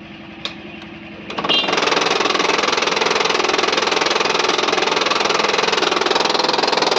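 HP LaserJet M1005 printer running with a loud, rapid grinding rattle from its main motor's gear (pulley). It starts about a second and a half in, after a quieter hum and a few clicks. The cause is a worn main-motor pulley gear.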